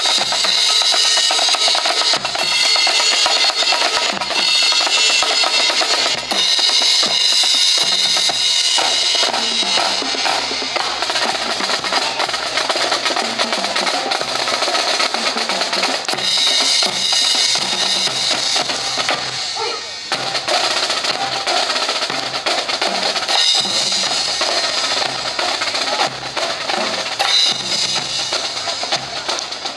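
Drum and bugle corps drumline marching past: snare drums, multi-tenor drums, bass drum and cymbals playing a steady cowbell-groove cadence. It grows somewhat quieter in the second half as the line moves away.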